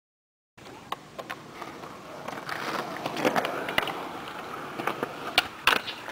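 Skateboard wheels rolling on concrete after a brief silence at the start, with scattered sharp clacks of the board hitting the ground, the two loudest close together near the end.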